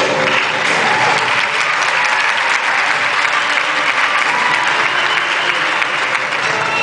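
Audience applauding, a dense steady clapping that fills the pause in the music.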